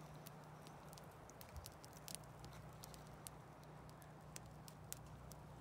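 Campfire crackling faintly, with scattered sharp pops and ticks over a low steady hum, near silence otherwise.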